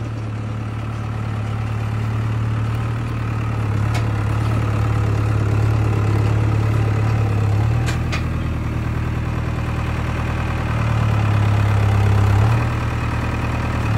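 Farm tractor engine running steadily at low speed while its front loader handles a hay-ring feeder; the engine note shifts about halfway through and again near the end as the loader works. Two faint clicks come through over the engine.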